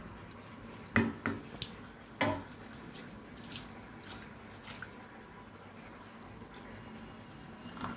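Cooked rice tipped from a steel pot into a perforated steel colander, its starch water trickling and dripping through. Two sharp metal knocks of steel on the colander about one and two seconds in, then a few lighter clinks.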